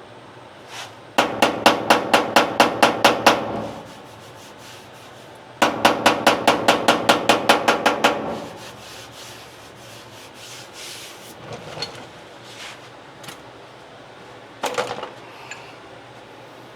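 A hammer tapping down high spots on a steel car fender: two quick runs of ringing metal taps, about six a second, then a few single knocks.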